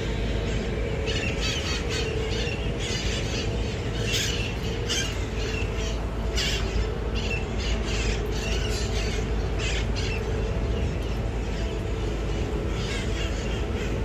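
Flock of wild red-masked parakeets (cherry-headed conures) giving harsh, screeching squawks in quick series, thickest in the first half and picking up again near the end, over a steady low rumble.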